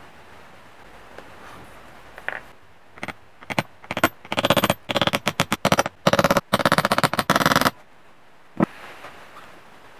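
Hand file rasping in quick short strokes against the edge of a metal engine part, as a burst of strokes in the middle, then a single sharp click near the end.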